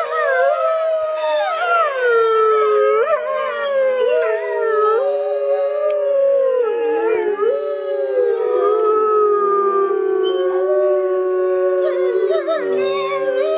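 Several canids howling together in a chorus of long, overlapping howls. Some voices hold a steady pitch while others rise and fall.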